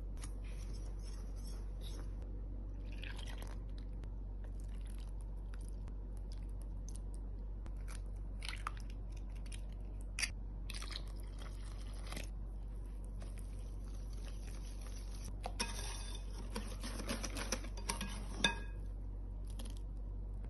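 Kitchen baking sounds over a steady low hum: a soft rustle of brown sugar poured into a mixing bowl, a sharp crack as an egg is broken open about ten seconds in, then a run of quick clicks and scrapes as the chocolate cake batter is mixed in the bowl.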